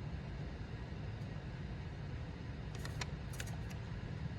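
Steady low background rumble with a few faint light clicks about three seconds in, like small parts or tools being handled.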